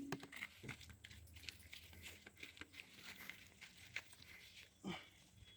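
Near silence, with faint scattered clicks and a soft knock near the end.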